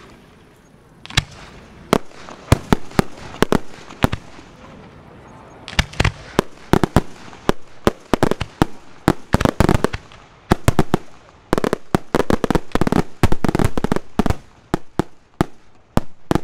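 Aerial firework shells bursting in a display: a volley of sharp bangs at irregular intervals, sparse at first and coming thick and fast from about six seconds in.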